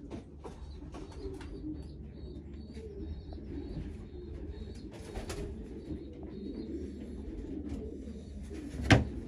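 Racing pigeons cooing steadily in a loft, with faint scattered ticks and a single sharp knock near the end.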